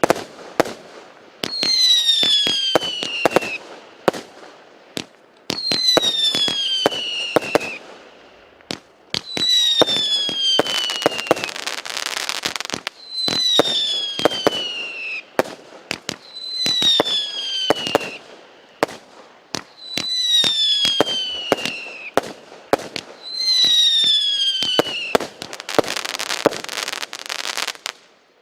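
A set of 20 mm roman candles firing shot after shot. Each shot gives a whistle that falls in pitch over about two seconds, followed by sharp bangs; this happens seven times. Twice, a dense crackling of many small bursts follows.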